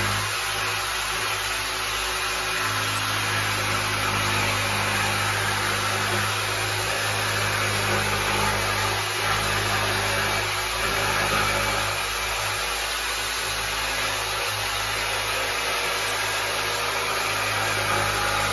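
Corded jigsaw running steadily as it cuts a taper down the edge of a kitchen cabinet's side panel.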